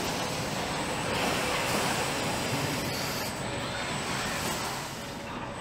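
Steady machinery noise of a car assembly line, with a hiss that swells for a couple of seconds about a second in.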